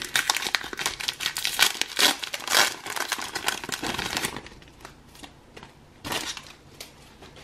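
Foil wrapper of a Pokémon booster pack being torn open and crinkled by hand, a dense crackle for about four seconds. Then it goes quieter, with one more short rustle about six seconds in as the cards come out.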